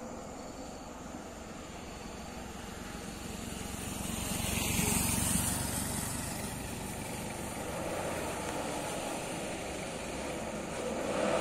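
A motorcycle passes close by and rides off. Then a loaded palm-fruit truck's diesel engine grows louder as the truck climbs the hill toward the listener.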